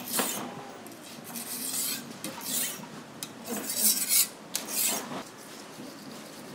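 Knife blade drawn by hand along a sharpening stone: a series of scraping strokes, about one a second.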